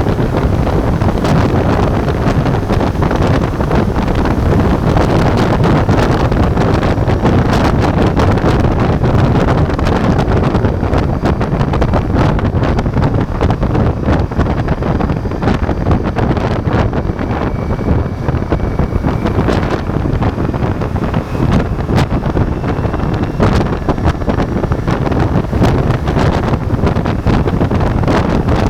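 Wind buffeting the action camera's microphone at riding speed, over the steady running of a Ducati Multistrada V4's V4 engine and road noise.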